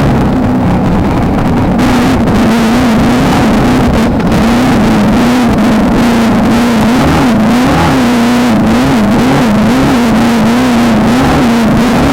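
Off-road race car's engine running hard at high revs. Its pitch rises and dips slightly again and again, with constant loud rattling and road noise from the vehicle pounding over rough desert ground.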